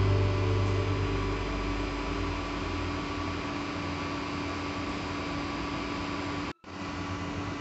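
A pot of thickened milk simmering on a gas stove: a steady hiss with a low hum. The sound cuts out for an instant near the end.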